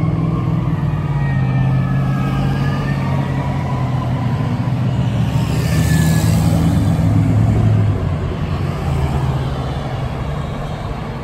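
Road traffic on a multi-lane road: car engines and tyres passing steadily, louder as a vehicle passes close about six seconds in.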